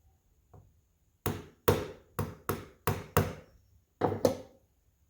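About eight sharp, hard knocks, several coming in quick pairs, with near quiet between.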